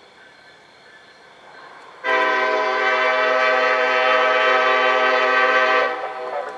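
Norfolk Southern diesel locomotive's air horn sounding one long, loud blast of about four seconds, starting about two seconds in, on an approaching train.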